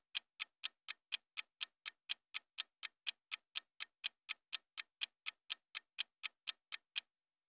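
Clock-ticking sound effect counting down a puzzle timer: sharp, even ticks about four a second, stopping near the end.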